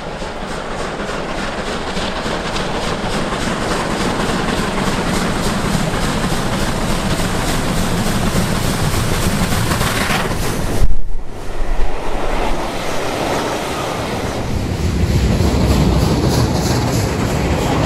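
A rebuilt Merchant Navy class three-cylinder steam locomotive working a train, its exhaust and running noise growing steadily louder as it approaches. About eleven seconds in there is a sudden loud burst of noise as it passes beneath, followed by the rumble of the coaches rolling past.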